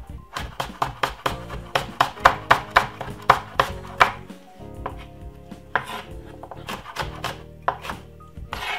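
Kitchen knife chopping on a wooden cutting board: a quick, even run of strokes, about four a second, for the first four seconds or so, then a few slower, scattered strokes.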